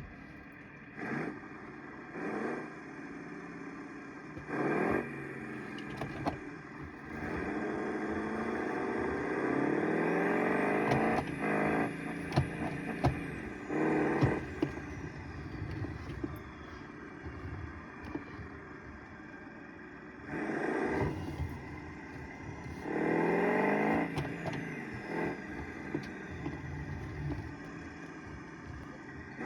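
Turbocharged engine revved in a series of short blips and a few longer holds. A faint turbo whistle rises and falls above the engine note as the turbo spools up and down.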